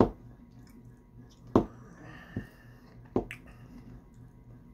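Close-miked eating of apple pie with cream: a handful of sharp clicks and smacks from the spoon and the mouth, about five, with a pair close together near the end. A low steady hum runs underneath.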